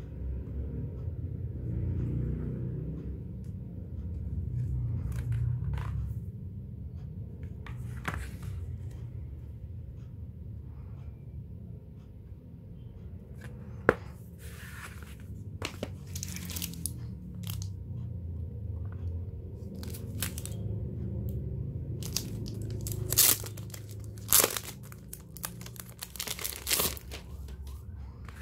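Thick card postcard book and its packaging being handled: stiff card pages bent and turned, rustling and scraping, with scattered sharp snaps and clicks, the loudest in the last few seconds. A steady low rumble runs underneath.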